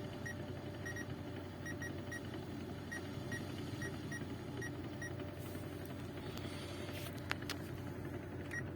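Great Wall Hover's engine and manual gearbox running with a steady low drone, a gearbox noise the mechanic puts down first of all to its bearings. About a dozen short, high electronic beeps come at irregular spacing through the first five seconds, and there are a few sharp clicks later on.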